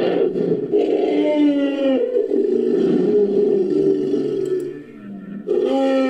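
Sound-effect roar of an invented sauropod dinosaur, built from Diplodocus and other sauropod sound effects: long, drawn-out calls whose pitch falls. The call breaks off briefly about five seconds in, and another starts.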